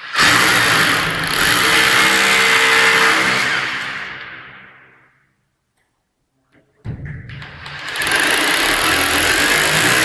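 Corded electric hammer drill boring into a hard wall: it runs at full speed for about four seconds, winds down and stops, then starts again about two seconds later and builds back up to full speed.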